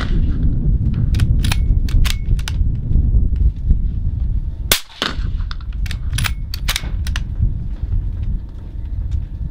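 Gunshots on a shooting range: a string of sharp cracks at irregular intervals, the loudest about halfway through, over a steady low rumble of wind buffeting the microphone.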